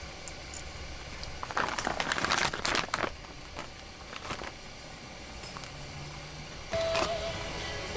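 Crinkling, rustling handling noise for about a second and a half, followed by a few scattered clicks. A melody comes in near the end.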